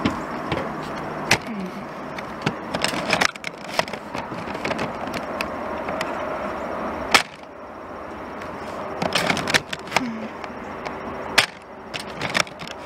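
Nerf Strongarm dart blaster being primed and fired, one shot at a time: a string of sharp plastic clacks and pops from the priming slide and the shots, spread out over several seconds, the loudest about seven seconds in.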